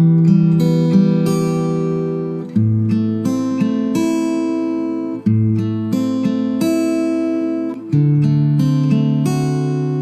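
Acoustic guitar playing a slow chord progression, each chord struck and left to ring, with a new chord about every two and a half seconds.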